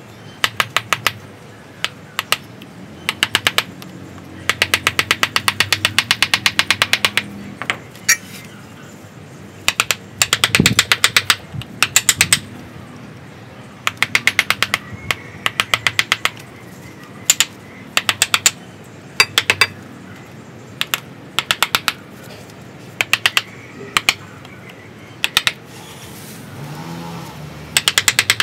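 Wooden mallet tapping a carving chisel into the trunk of a ficus bonsai. The taps come as rapid runs of sharp knocks, in short bursts with pauses between, the longest lasting a couple of seconds.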